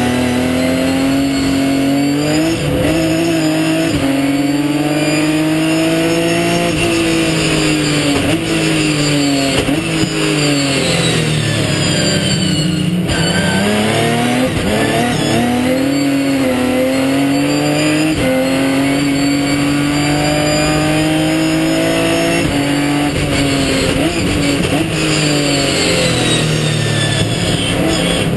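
Ginetta G50 race car's V6 engine heard from onboard at racing speed, revving up through the gears and falling back on braking. About halfway through the revs drop to their lowest, then the engine pulls hard again.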